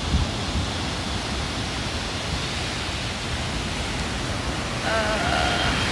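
Ocean surf breaking and washing up a sandy beach, a steady rushing noise, with wind buffeting the phone's microphone as an uneven low rumble. Near the end comes a short high call that wavers, then holds.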